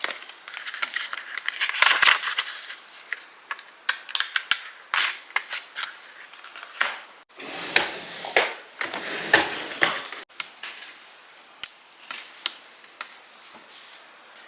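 Rustling, crinkling and sharp clicks of things being handled, in short clips joined by abrupt cuts.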